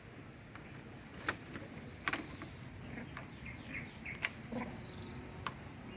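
Quiet outdoor background with faint high chirps and a few scattered sharp clicks and taps.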